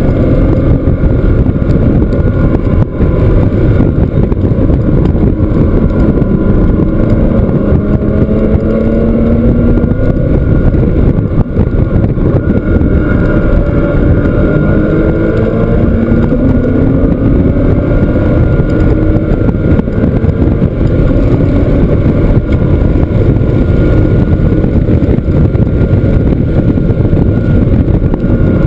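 Porsche flat-six engine under hard acceleration on a racetrack, heard from inside the car. Its pitch rises several times as it revs up through the gears, with wind noise on the microphone.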